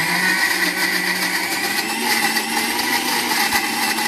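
Electric mixer grinder (mixie) running steadily, blending chopped tomatoes into a paste in its steel jar.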